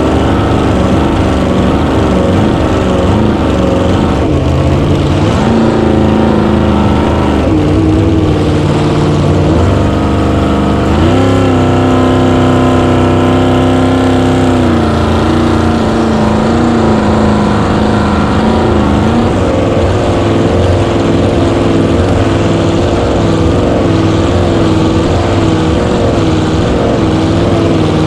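Small-block Chevy V8 of a flat-bottom cracker box race boat running hard at race speed, heard from on board with a constant rush of spray. The engine note steps up and down in pitch, holds highest for a few seconds near the middle, and wavers rapidly near the end.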